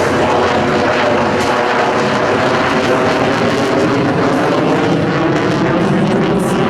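F-35A Lightning II fighter jet's F135 turbofan engine, a loud, steady jet roar as the aircraft flies its display.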